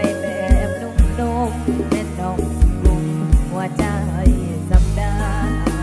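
Live band music from a slow mor lam song: a steady kick drum about twice a second under bass, keyboard and a wavering melody line.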